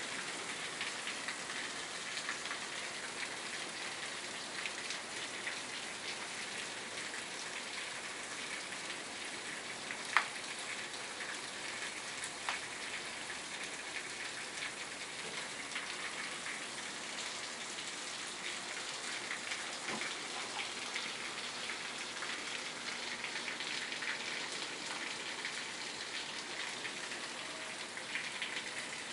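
Heavy rain pouring steadily onto pavement and a patio: a dense, even patter of drops. A few sharper single taps stand out, the loudest about a third of the way in.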